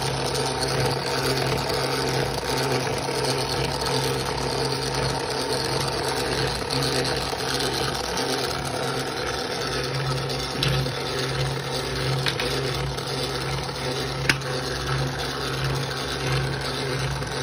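3D-printed GM LS3 model engine turned over by its electric drive, a steady mechanical hum with the crank, valve train and belts running. A few light plastic clicks, one sharper late on.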